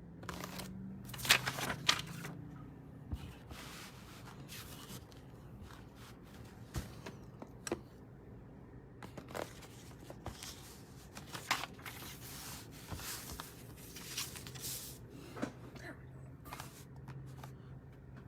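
Irregular clicks, taps and short rustles of things being handled on a table, with the loudest cluster between one and two seconds in, over a faint steady low hum.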